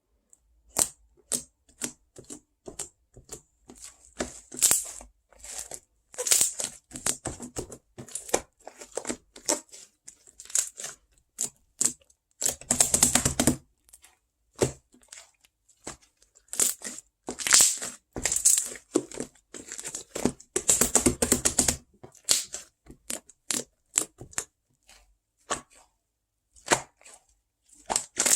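Close-up ASMR crinkling and tearing sounds from handled crinkly material, coming in irregular short bursts with two longer stretches of continuous rustling partway through.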